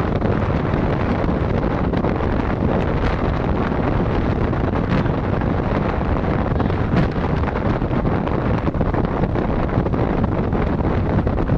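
Steady rush of wind buffeting the microphone over a low rumble, as when filming from a moving vehicle.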